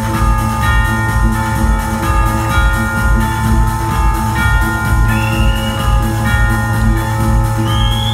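Live orchestral techno: a chamber orchestra's held string and wind notes over a steady electronic kick-drum beat of about two beats a second, with rising glides about five seconds in and again near the end.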